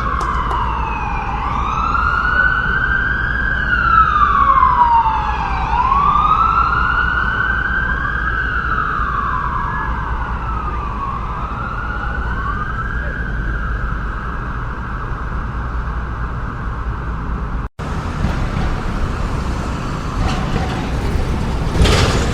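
Emergency-vehicle siren wailing, slowly rising and falling about once every four seconds, over a steady rumble of city traffic. The siren fades out, and after a brief break the traffic rumble goes on, with vehicles whooshing past near the end.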